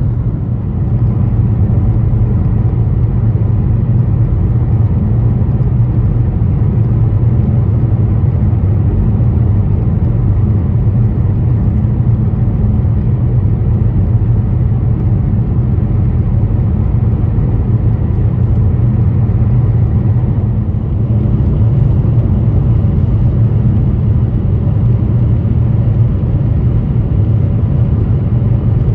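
Steady road and engine noise inside a moving car: a low, continuous rumble, easing for a moment about 20 seconds in and then coming back a little louder.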